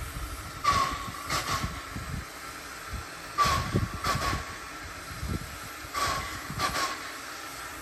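Steam locomotive working slowly, its exhaust beats coming as pairs of short hissing chuffs about every two and a half seconds, over a low rumble.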